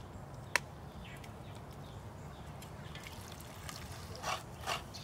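A machete blade strikes a coconut shell once with a sharp crack, then coconut water trickles out of the opened nut into a plastic dipper in several short splashy spurts near the end.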